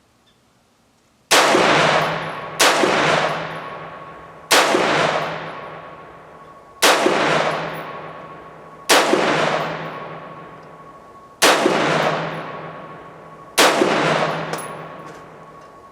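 Bear Creek Arsenal BC-15 16-inch-barrel AR-15 rifle firing 62-grain ammunition semi-automatically: seven single shots spaced about one and a half to two and a half seconds apart, each followed by a long echo that fades away.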